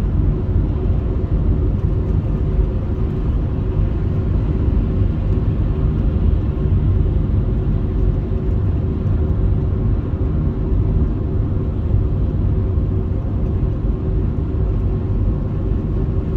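Steady low rumble of a car driving along an open highway, heard from inside the cabin: tyre and engine noise.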